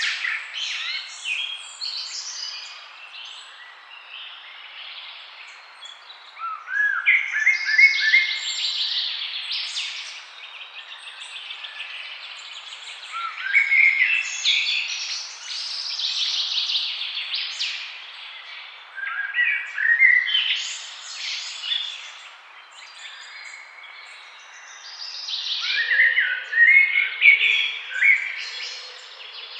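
Forest birdsong: phrases of quick chirping notes, each lasting a few seconds and coming back about every six seconds, over a faint steady background hiss.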